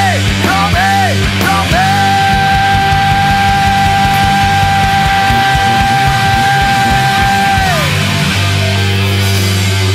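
Heavy rock band playing live: distorted electric guitar through a Marshall stack, drums and bass. A singer yells short phrases, then one high note is held for about six seconds before it drops away. After that the guitars come up heavier.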